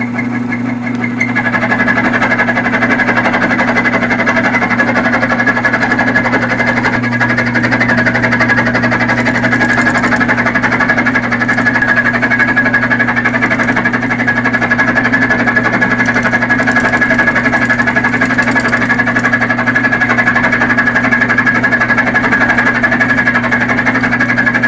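Bench-top mill-drill running with its end mill cutting a radius into the shoulder of a cast-steel truck flywheel's centre bore: a steady motor hum with a steady high cutting tone that firms up about a second in as the cut takes hold.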